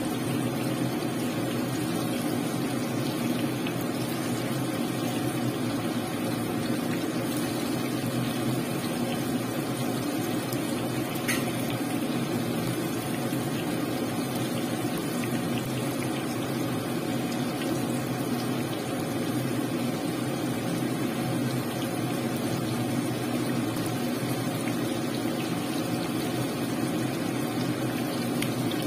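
Battered chicken pieces deep-frying in hot oil, a steady bubbling sizzle. There is one light tick about eleven seconds in.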